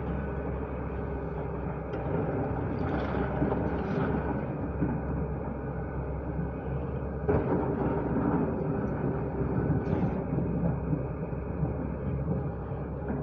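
Diesel engine of a JCB digger running under load, swelling in level about two seconds in and again around seven seconds, with a few sharp knocks.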